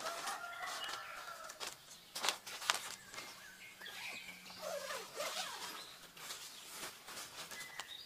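Soft rustling and light knocks of a foam play mat being smoothed out, knelt on and walked on barefoot, with a bird calling in the background.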